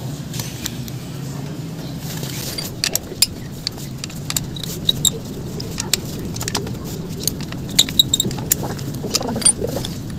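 Irregular small metallic clicks and clinks of a hex key and bolts being worked on a motorcycle's shifter and footpeg bracket, starting a couple of seconds in.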